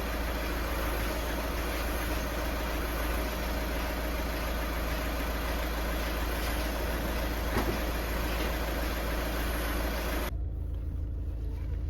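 Car running, heard from inside the cabin: a steady low rumble with a wide hiss over it. About ten seconds in the hiss stops abruptly, leaving only the low hum.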